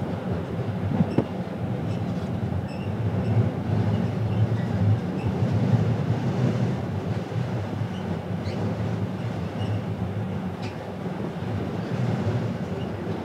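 Steady low rumble of a ferry under way, heard from on board: the deep drone of the ship's machinery and its passage through the water, with a few faint ticks scattered through it.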